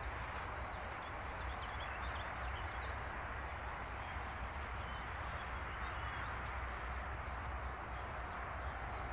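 Steady outdoor background hiss with small birds chirping faintly now and then.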